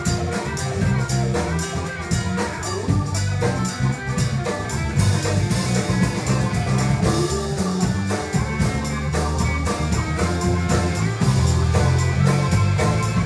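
Live band playing an instrumental passage: electric guitar over bass, keyboard, drum kit and percussion, with a steady beat.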